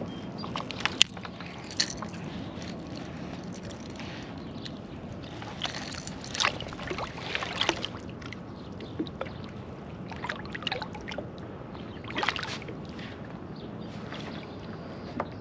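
Water sloshing and gurgling as a striped bass is held in the water alongside a kayak, with a few short splashes and knocks scattered through over a steady background hiss.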